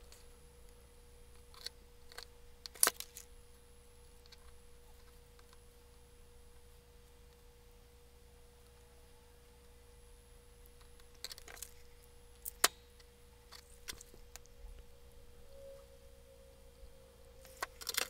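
A few sharp small clicks and taps of a stripboard and wires being handled, the loudest about three seconds in and about twelve seconds in, over a faint steady hum.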